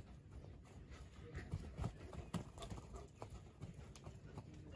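A dog running about in play: irregular, fairly quiet paw thuds and scuffles on the ground, a few heavier ones in the middle.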